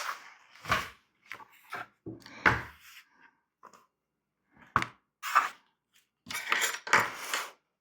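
Knocks, clicks and rustling of the contents of a speaker refoam kit being handled and sorted, with a longer rustle near the end.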